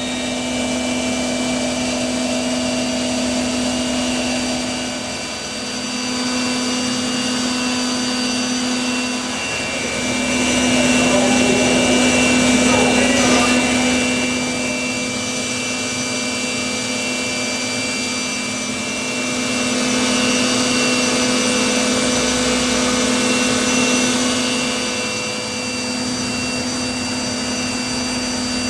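Five-axis CNC machining centre milling an aluminium (A5052) block: a steady spindle and cutting hum made of several held tones. The lowest tone breaks off briefly a few times and comes back. A rougher, noisier stretch of cutting sits in the middle.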